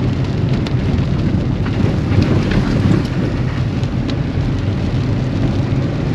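Heavy rain hitting a moving vehicle, with scattered drops ticking sharply over a steady low rumble of the engine and tyres, heard from inside the cab.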